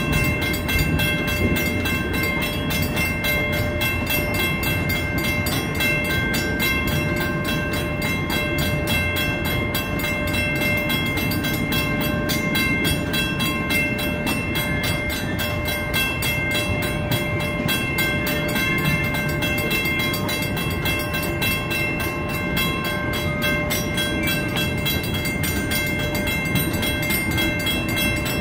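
Streamlined passenger cars of a long train rolling steadily past, wheels rumbling and clicking over the rail joints. A grade-crossing warning bell rings steadily over it.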